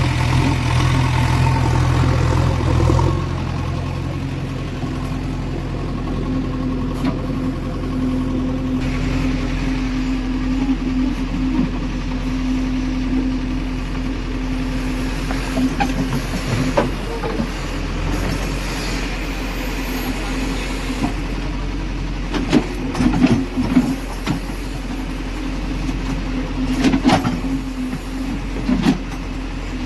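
JCB 3DX backhoe loader's diesel engine running steadily while the backhoe arm digs and dumps soil, louder for the first three seconds. Scattered knocks and thuds of the bucket and falling soil come in the second half.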